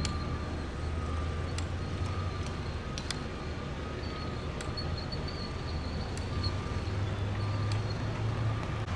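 Steady rumble of road traffic, with sharp knocks every second or two as workers hammer stakes into the ground on a construction site.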